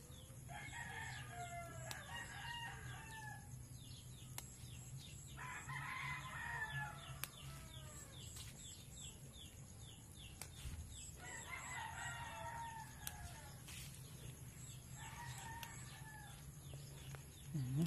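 Faint rooster crowing: four crows a few seconds apart, each two to three seconds long.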